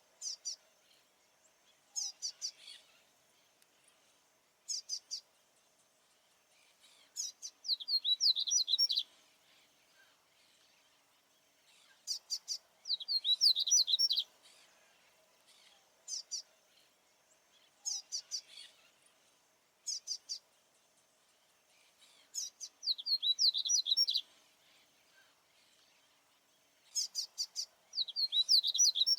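Male papa-capim seedeater singing: short sharp high notes every couple of seconds, broken by longer rapid twittering phrases, sung territorially to drive off rival males. A faint steady hum runs underneath.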